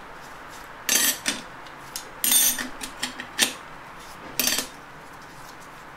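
Clutch friction discs and steel plates being stacked into the third clutch drum of a Honda A4RA automatic transaxle: a string of about seven light metal-on-metal clinks, some ringing briefly, then nothing for the last second and a half.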